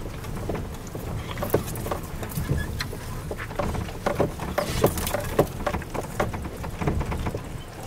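Off-road 4x4 crawling over a rough, rocky dirt track: a low engine rumble with repeated knocks and rattles as the wheels go over stones and ruts.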